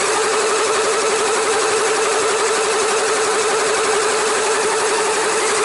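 LEGO Technic electric motors and gear trains of an RC tracked vehicle running, heard close up from a camera mounted on it: a steady whine with a fast wobble in pitch over a constant hiss.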